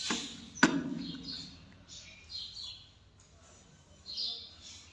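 Faint short chirps of small birds in the background, scattered through the pause, with two sharp clicks within the first second.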